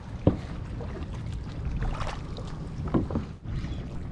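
Plastic kayak with gear knocking on it: one short knock just after the start and another about three seconds in, over a steady low wash of water and wind.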